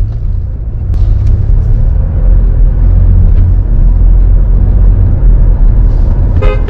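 Steady low rumble of a moving car heard from inside the cabin: engine and road noise. Near the end a car horn beeps briefly.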